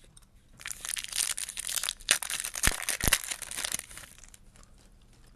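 Foil wrapper of a Topps Chrome trading-card pack crinkling and tearing as it is ripped open by hand. The crackling starts about half a second in, lasts about three seconds and includes a couple of sharp rips near its end.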